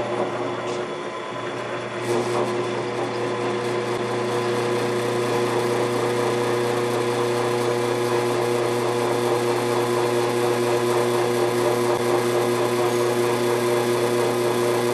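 Drill press motor running while a hole saw cuts through a steel plate. A steady hum, with a rougher cutting noise added from about two seconds in as the saw bites into the steel.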